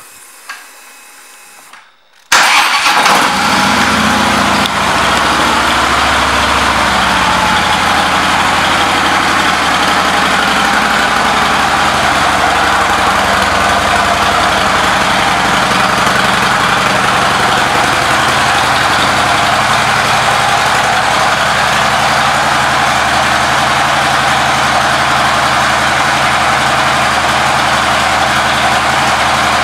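2013 Harley-Davidson Road King's V-twin engine starting about two seconds in, catching at once. It runs a little faster for the first couple of seconds, then settles into a steady, loud idle.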